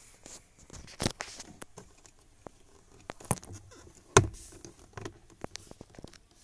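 Hard plastic clicks and knocks from a hand twisting a Toyota Hilux Revo glove box's side stopper pin to release it. The two loudest clicks come about a second in and about four seconds in, with smaller ticks and scrapes between.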